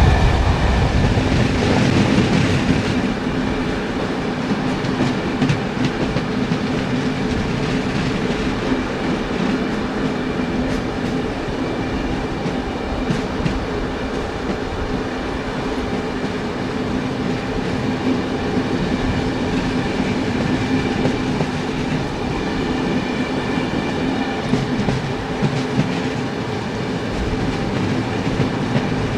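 Train wheels rolling along the rails: a steady rumble and hum with occasional clicks of the wheels over rail joints. The low rumble is heavier for the first few seconds, then eases to an even run.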